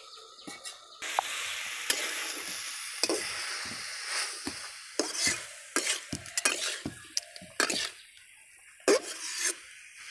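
Brinjal, potato and tomato pieces frying in hot oil in a steel kadai, tomatoes just added: a sizzle sets in about a second in and eases off after a few seconds, while a metal ladle scrapes and knocks against the pan many times as it stirs.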